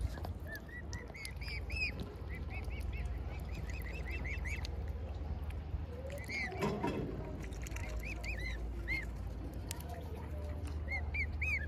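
Young waterfowl peeping: many short, high, rising-and-falling peeps in quick runs. About two-thirds of the way through comes one louder, lower call, over a steady low hum.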